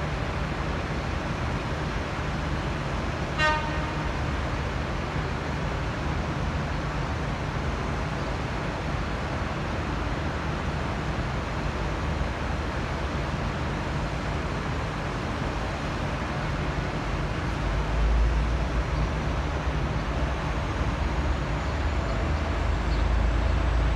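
V/Line N class diesel locomotive N459 sounding one short toot on its Leslie RS5T horn about three seconds in, over the steady low rumble of its diesel engine. The engine rumble grows louder about eighteen seconds in as the locomotive powers up to depart.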